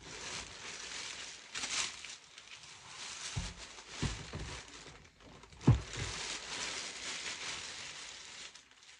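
Clear plastic bag crinkling as a large vinyl figure is pulled out of it, with three dull knocks of handling, the loudest about two-thirds of the way in.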